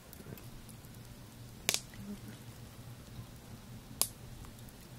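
Wood fire burning in a fire pit, faint crackling broken by two sharp pops about two seconds apart, over a low steady hum.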